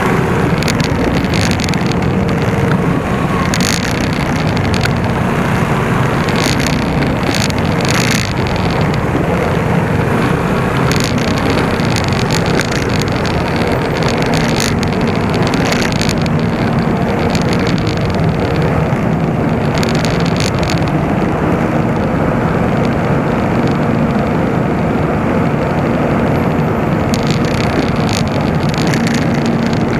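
Motorcycle running steadily while being ridden, with wind rushing over the microphone.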